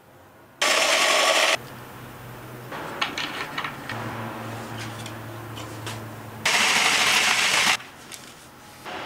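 Ryobi cordless drill boring holes through PVC and the wooden drum shell: two loud bursts of drilling, about a second each, one about a second in and one near the end. Between them a lower steady hum and a few clicks of the work being handled.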